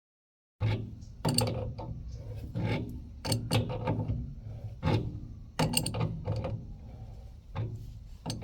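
Metal tools clicking and clanking on a threaded gas-line fitting as it is turned in and tightened, in irregular sharp knocks starting about half a second in.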